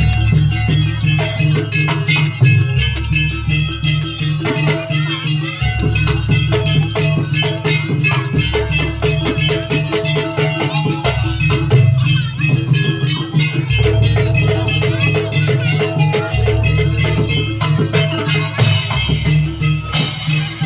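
Live Banyuwangi jaranan ensemble music: busy drumming and rattling percussion with high melodic lines over deep held notes that change every few seconds. Two short bright hissing crashes come near the end.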